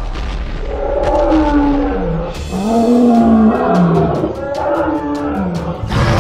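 A cartoon monster roar sound effect for a giant green gorilla: a series of drawn-out growling roars whose pitch rises and falls.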